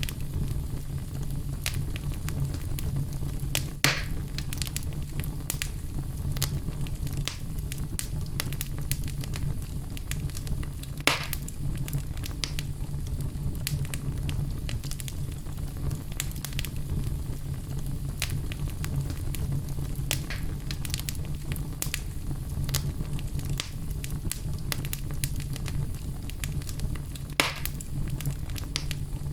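Wood fire burning in a fireplace: a steady low rumble with constant small crackles, and three louder pops spread through.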